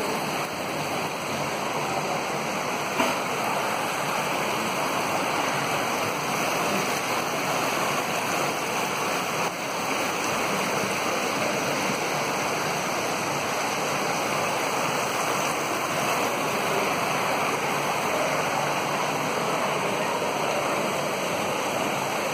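Water pouring steadily down an indoor artificial rock waterfall, a continuous even rush of splashing water.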